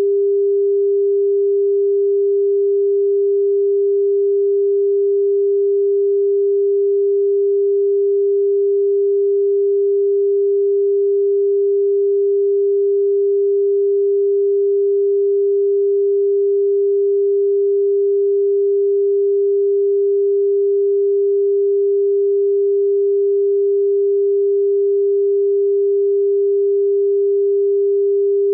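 Broadcast line-up test tone played with colour bars: a single steady pure tone that never changes in pitch or level.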